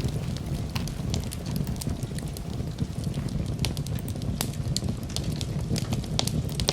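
Campfire burning: burning wood crackling and popping in sharp, irregular snaps over a steady low rush of the flames.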